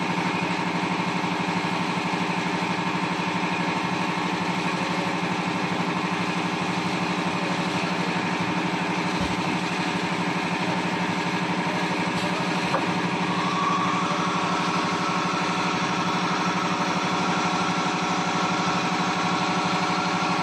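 1325 CNC wood router with linear automatic tool changer running: a steady machine drone made of stacked hum tones. A faint click comes about two-thirds of the way through, and a higher whine joins soon after.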